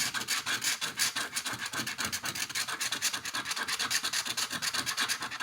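Scratch-off lottery ticket being scratched with rapid back-and-forth strokes, scraping off the latex coating over the winning numbers.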